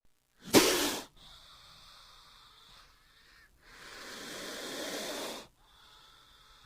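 King cobra hissing: a short, sharp hiss about half a second in, then a longer hiss of about two seconds that slowly grows louder.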